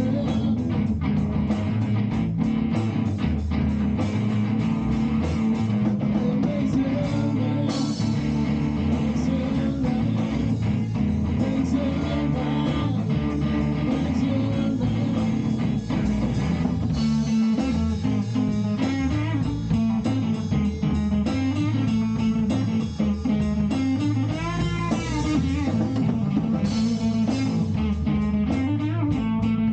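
Band playing instrumental music led by guitar, continuous with a steady beat.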